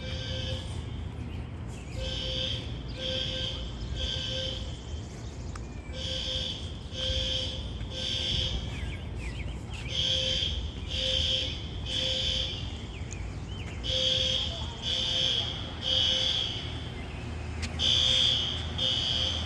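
Building fire alarm sounding in the temporal-three evacuation pattern: three high-pitched beeps, then a pause, repeating about every four seconds.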